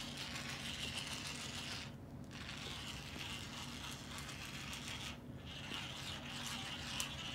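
Small battery-powered vibrating cat toy running, a steady mechanical buzz and rattle, briefly quieter about two and five seconds in.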